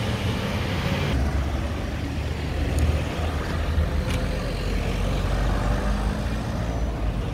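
Road traffic: car engines running and cars going by close at hand, a steady low rumble.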